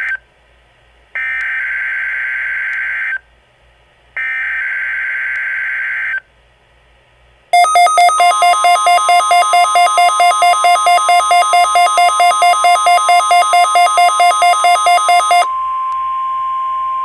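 Weather radio Emergency Alert System test signal: two-second bursts of buzzy data tones (the SAME header). These are followed by a fast-pulsing electronic alarm beep over a steady single alert tone near 1 kHz, and the steady tone continues alone for a moment after the pulsing stops.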